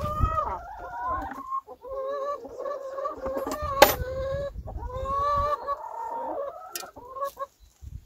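Hungry brown laying hens calling and clucking at feeding time, several drawn-out, wavering calls overlapping, with one sharp clack about four seconds in.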